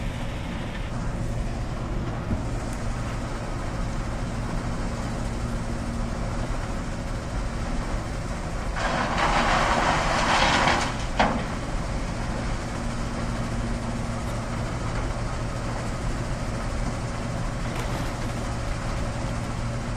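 Steady low rumble and hum of construction machinery, like cement being poured into a big barrel. About halfway through, a louder rushing noise lasts about two seconds and ends in a sharp knock.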